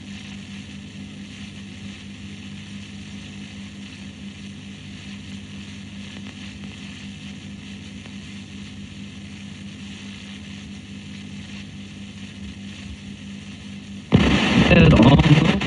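Steady electrical hum and hiss, then, about a second and a half before the end, a sudden loud burst of rough noise like radio static.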